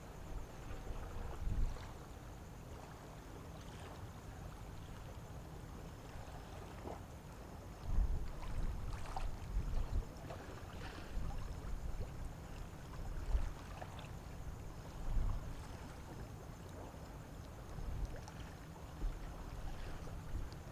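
Low, uneven rumble of harbour ambience around a departing cruise ship, swelling several times, over a faint steady hum.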